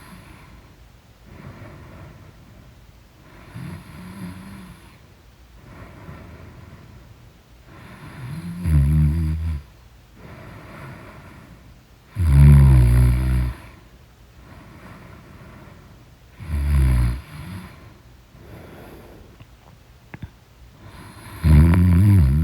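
Snoring in deep sleep, one snore roughly every four seconds. The first few are faint, then about eight seconds in come four loud, low snores.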